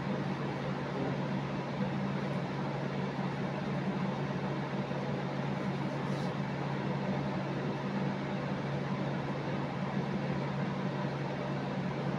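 A steady mechanical hum with an even hiss over it, unchanging in level.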